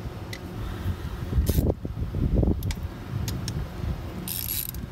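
A few short metal clicks and taps from a hand wrench working a bolt on top of a diesel engine, over a low steady rumble. There is a brief hiss near the end.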